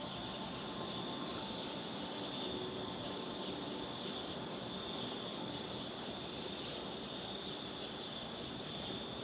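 Woodland ambience: a steady high insect drone with many small birds chirping.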